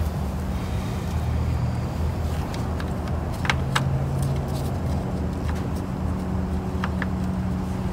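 Steady low hum of an idling vehicle engine, with a few sharp plastic clicks and taps as a headlight assembly is pushed and fitted into place.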